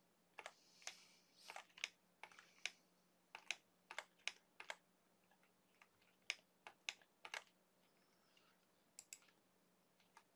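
Faint, irregular clicks of a computer mouse and keyboard, about twenty in all, with a pause of a couple of seconds after the middle, over a faint steady low hum.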